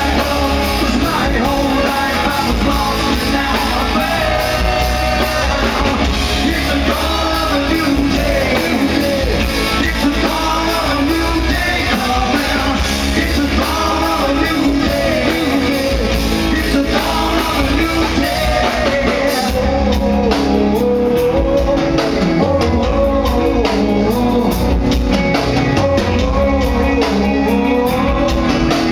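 Loud live rock band performing: a male lead vocalist sings into a handheld microphone over electric guitars and drums.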